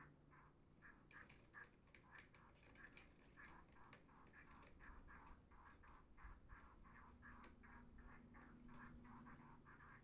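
Small birds pecking and scratching at a car's wing mirror and window: faint, quick taps, about three or four a second.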